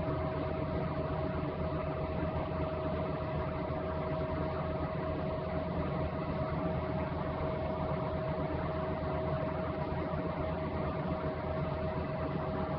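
A steady mechanical hum with hiss and a constant mid-pitched tone, unchanging.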